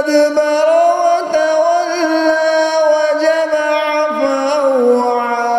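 A man's voice in melodic Quran recitation (tajweed), holding one long, ornamented note with wavering trills. The note drops lower about four seconds in.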